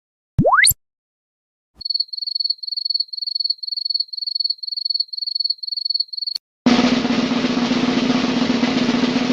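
A quick rising whistle-like sweep. Then a digital alarm clock beeping in rapid clusters about twice a second for around four seconds. Then a snare drum roll begins near the end.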